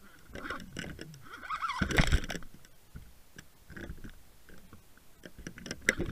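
A hooked pike thrashing on the line, heard underwater: knocks, scrapes and rushing water with short wavering squeaks, a loud surge about two seconds in and sharp clicks near the end.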